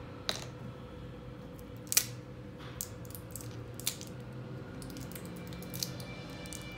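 Scattered light clicks and taps, the loudest about two seconds in, over a steady room hum with a faint steady tone.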